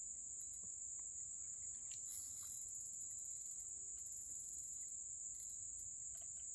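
Insects in the riverside trees calling in a steady, high-pitched trill, with a second, higher pulsing call joining twice, at about two seconds in and again at about four seconds.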